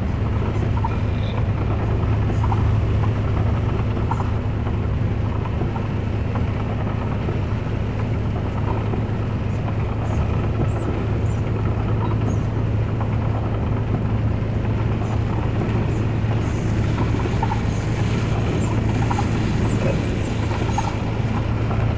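A vehicle's engine drones steadily, heard from inside the cabin while driving through heavy rain, with rain and tyre noise as a constant hiss.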